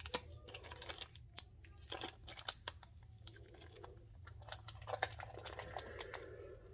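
Small parts being handled: scattered light clicks and rustling, as a new valve end cap and small metal valve-body parts are picked up and fitted by hand.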